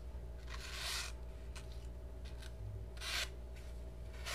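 Flipper knife's stonewashed 9Cr18MoV blade slicing through a sheet of paper in two short rasping strokes, with a third starting near the end. The edge is dull, so it rasps and crumbles the paper rather than cutting it cleanly.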